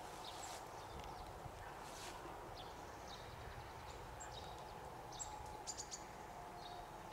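Quiet outdoor ambience: a steady low background hum with a few faint, brief bird chirps and light ticks scattered through it.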